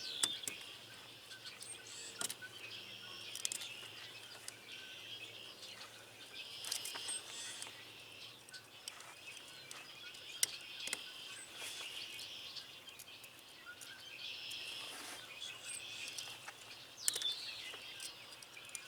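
Faint bird chirping, with occasional small metallic clicks and scrapes from wire cutters cleaning the tarnished centre conductor of a CB coax cable.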